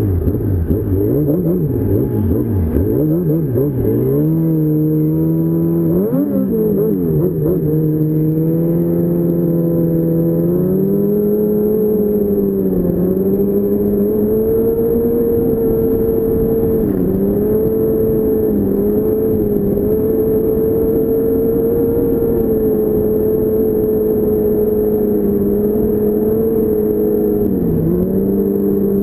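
2006 Yamaha Apex Attak snowmobile's four-stroke four-cylinder engine, heard from the rider's seat while riding a trail. The engine revs up and down over the first few seconds, climbs, then holds a steady cruising pitch for most of the rest, with brief dips as the throttle eases.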